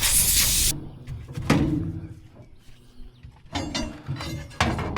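A dog barking several times in short sharp barks, after a brief burst of hiss at the start.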